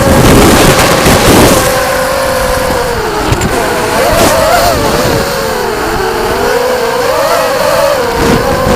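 FPV racing quadcopter motors and propellers whining, the pitch wavering up and down with throttle changes. There is a loud rush of noise in the first second or so.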